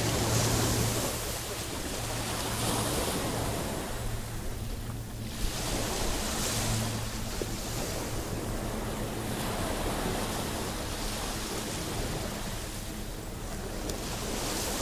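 Ocean waves washing in on the shore, the rush of water swelling and fading every few seconds, with wind buffeting the microphone.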